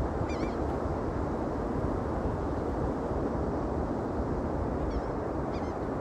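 Steady wind rushing over the microphone, with short, high bird calls, a couple about half a second in and a few more near the end.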